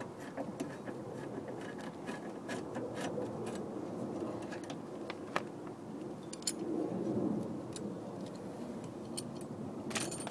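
Light metallic clicks and clinks, irregular and scattered, as a Phillips screwdriver works the screws out of a small metal door bracket and the bracket is handled, over a steady low background hum.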